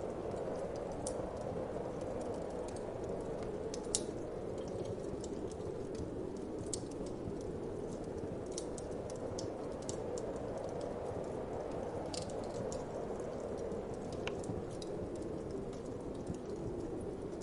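Fireplace fire crackling, with irregular sharp pops (the loudest about four seconds in), over a steady low whoosh of wind that swells and eases slowly.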